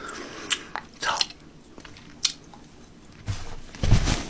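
Close-up chewing and biting of a KFC Double Down, fried chicken and cheese, with scattered wet mouth clicks and smacks. A louder low thump and rustle comes near the end.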